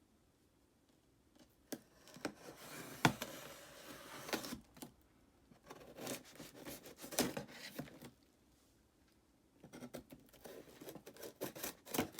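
Packaging being handled and opened by hand: rustling, crinkling and tearing with small clicks and knocks, in three bouts with short pauses between them.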